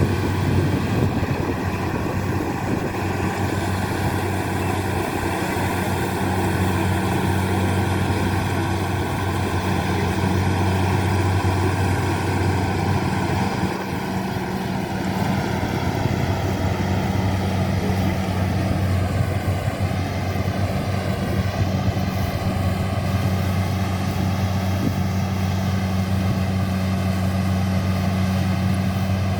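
Rice harvesting machine running steadily, its engine giving a strong low hum with a whine above it that slowly drops in pitch about halfway through.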